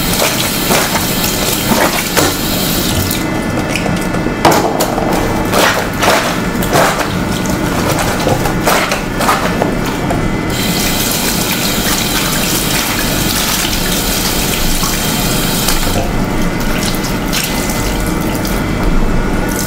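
Bathroom sink tap running steadily while socks and a t-shirt are hand-washed under it, with splashes now and then as the wet cloth is scrubbed and squeezed.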